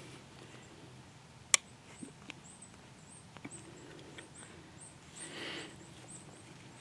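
Quiet woods: thin, very high chirps repeat two or three times a second throughout. A single sharp click comes about one and a half seconds in, followed by a few fainter ticks, and there is a brief rustle near the end.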